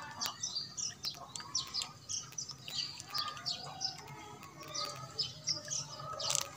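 Small birds chirping: many short, high calls overlapping throughout.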